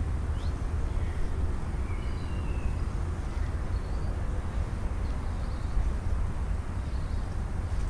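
House sparrows giving a few faint, short chirps over a steady low rumble.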